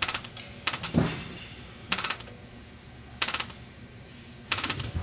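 Pneumatic butterfly-valve actuator and its Siemens positioner giving short rattling bursts of air, about five spread over a few seconds, with a low thump about a second in.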